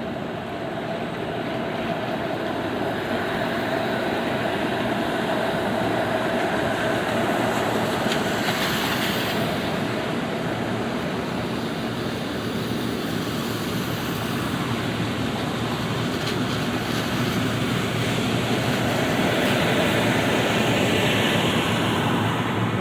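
Wet city street in light rain: traffic passing on wet pavement over a steady hiss. The sound swells slowly as vehicles go by, about a third of the way in and again near the end.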